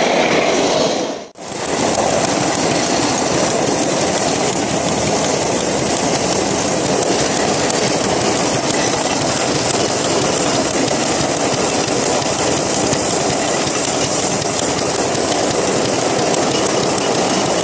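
5 inch gauge live-steam model of a Queensland Rail C17 4-8-0 locomotive running under steam: a quick, even beat of exhaust chuffs with steam hiss and the clatter of wheels on the rails, heard close up at track level. The sound dips briefly about a second in.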